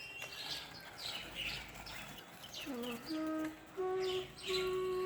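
Small birds chirping in quick, repeated calls, then a flute melody comes in about two and a half seconds in and becomes the loudest sound.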